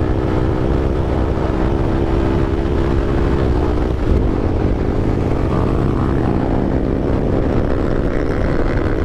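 Yamaha R15 V4's single-cylinder engine running hard through an Akrapovic exhaust under acceleration. Its note breaks and changes about four seconds in, a quick-shifter upshift.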